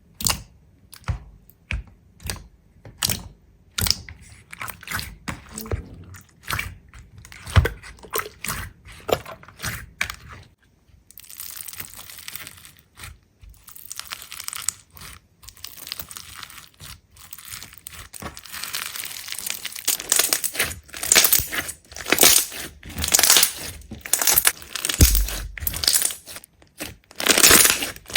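Crisp crunching and crackling: separate sharp cracks a few times a second at first, turning about a third of the way in into a denser, louder crackle that keeps building to the end.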